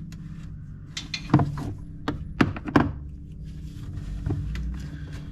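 Hand tools knocking and clunking against metal in a truck's engine bay: about six sharp knocks scattered over a few seconds, most of them bunched in the middle.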